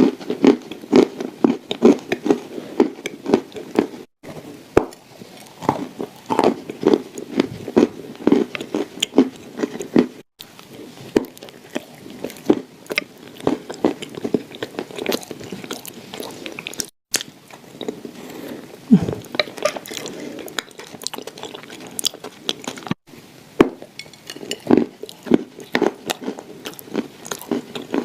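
Crunching and chewing of clay shortbread cookies: crisp crackles in a steady chewing rhythm of about two to three bites a second. The sound drops out abruptly several times.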